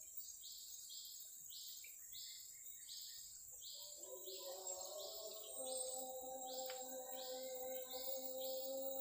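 Forest insects calling: a steady high buzz with an even, repeating chirp about twice a second. About four seconds in, a steady low hum of several pitches joins.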